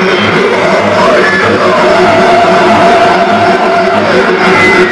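Loud harsh noise music: a dense, unbroken wall of distorted electronic noise with whining tones that rise, hold and fall in pitch.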